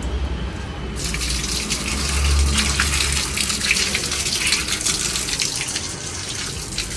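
Water gushing from a wall pipe and splashing onto a concrete floor, a steady hiss with crackling spatter that starts about a second in. A brief low rumble comes about two seconds in.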